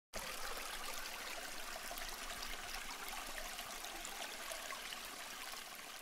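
Steady rushing noise like running water, starting abruptly.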